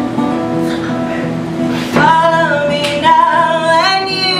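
Two acoustic guitars playing together in a live unplugged duet, with a woman's singing voice coming in about two seconds in.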